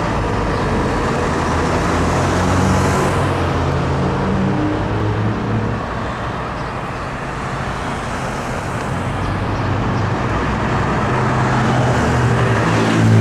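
Road traffic and a car engine running, a steady rumble heard from inside a stopped car.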